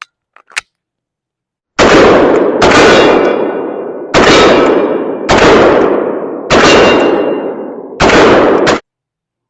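Six shots from a Springfield Hellcat Pro 9mm pistol, fired at a slow, irregular pace about a second apart, each with a long ringing tail. A couple of faint clicks come just before the first shot.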